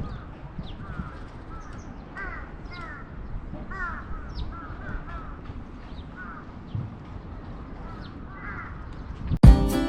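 Crows cawing over and over in a long series, with short high chirps of small birds and a low rumble underneath. Music cuts in suddenly near the end.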